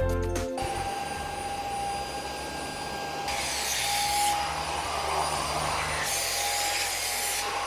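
Agaro Grand handheld bed vacuum cleaner running with a steady motor whine and suction hiss as it is passed over upholstery. The hiss swells louder twice, about three and six seconds in.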